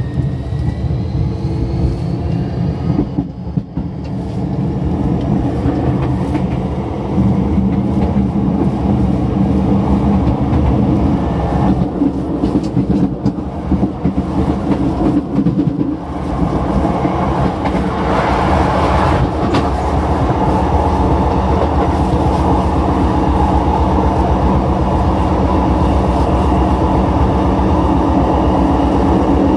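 Sotetsu 20000 series electric train running, driven by a Hitachi hybrid SiC VVVF inverter. A faint inverter whine rises in pitch as the train accelerates, then fades in the first few seconds under the steady rumble of the wheels and the clickety-clack of rail joints. The running noise grows louder about halfway through.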